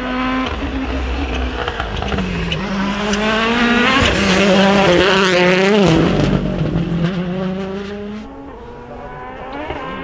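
2020 World Rally Cars at rally pace, a Hyundai i20 Coupe WRC first, their 1.6-litre turbocharged four-cylinder engines revving hard and dropping in pitch at each gear change, with a few sharp pops. The loudest pass is about halfway through.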